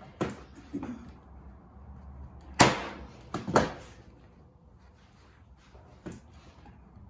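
Electric staple gun firing staples through cotton canvas into a wooden stretcher frame: sharp single snaps, the two loudest about a second apart near the middle, with lighter knocks just after the start and again about six seconds in.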